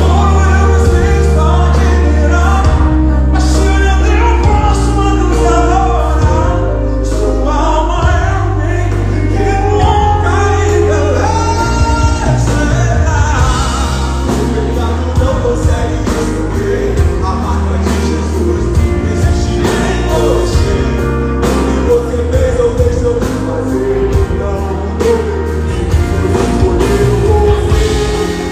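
Live gospel song: male voices singing into a microphone over a full band with guitars, bass and drums, heard loud and bass-heavy through the hall's PA.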